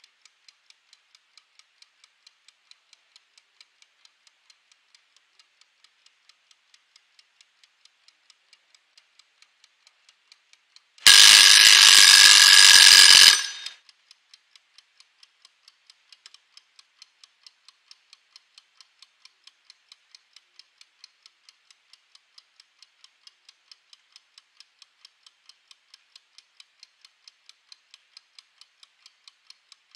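Mechanical wind-up kitchen timer ticking evenly, about three ticks a second. About eleven seconds in its bell rings loudly for two to three seconds as the countdown reaches zero, then the ticking goes on.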